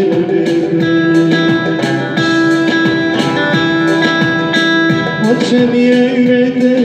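Electric bağlama (saz) picking a fast instrumental passage of a Turkish folk tune, over a long held note that changes about five seconds in.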